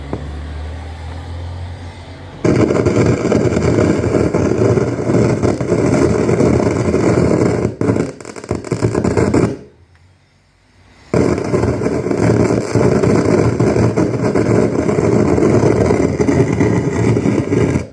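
Anvox ACA1001 amplified speaker with a fault: a low hum, then its loudspeakers burst into a very loud, crackling, popping noise a couple of seconds in. The noise cuts out for about a second and a half near the middle and comes back. It does not respond to the volume control or to switching to Bluetooth, so it is an amplifier fault and not radio static.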